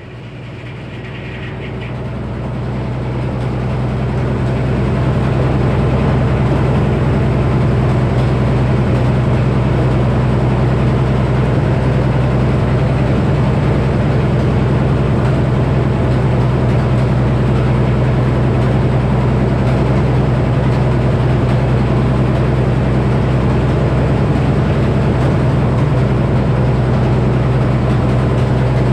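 Frick sawmill running under its Minneapolis Moline HEB 605-cubic-inch six-cylinder engine. The steady engine drone and saw noise grow louder over the first few seconds, then hold steady.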